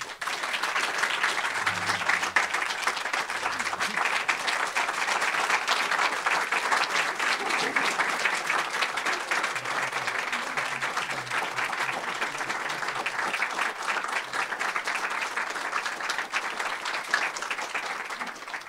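Audience applauding: many hands clapping in a steady, even patter that breaks out suddenly and dies away at the end.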